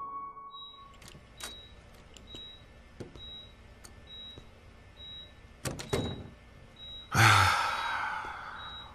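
Hospital patient monitor beeping steadily, one short high beep about every three quarters of a second. A few short knocks come near the middle, and a loud rushing sound starts about seven seconds in and fades away over about two seconds.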